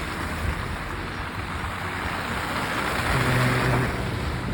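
A car passing on a snowy, slushy road: tyre and engine noise builds up and is loudest about three seconds in.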